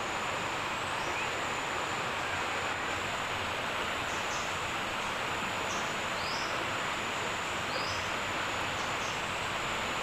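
Steady outdoor background noise: an even rushing hiss with a thin, steady high whine over it and a few faint, short high chirps.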